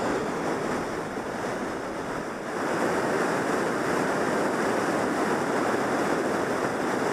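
Fast river water rushing over rocks and a low ledge in a steady white-water rush, a little louder about two and a half seconds in.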